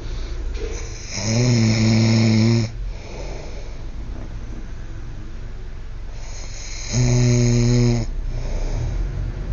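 A man snoring loudly in deep sleep: two long, pitched snores about five and a half seconds apart, with quieter breathing noise between them.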